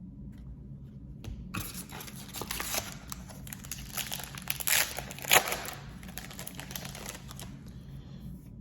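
Foil wrapper of a trading-card pack crinkling and tearing as it is ripped open, in a run of crackles from about a second and a half in until about seven seconds in, loudest near five seconds in.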